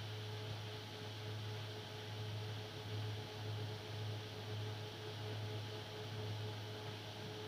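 Steady low electrical hum with a faint higher steady tone over an even hiss: the background noise of the recording setup, with no keystrokes or other events standing out.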